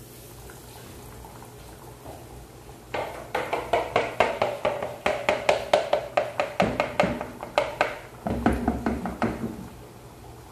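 Chicken deep-frying in a saucepan of hot oil: rapid, loud crackling and bubbling that starts suddenly about three seconds in, falls back briefly near eight seconds, and dies down near the end.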